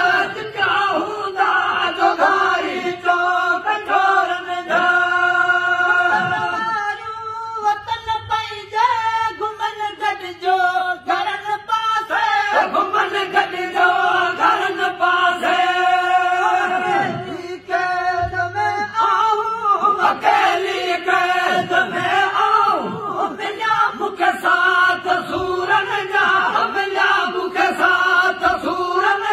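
Men singing a Sindhi song: a lead voice with a winding melody over a steady held drone note from other voices.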